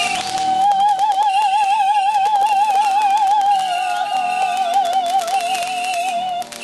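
Background music: one high note held for about six seconds with a wide, even vibrato over a quiet accompaniment, cutting off near the end.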